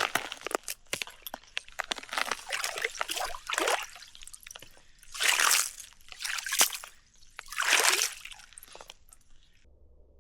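Water sloshing and splashing in irregular bursts with small clicks, rising into three louder swells, then cutting off abruptly near the end.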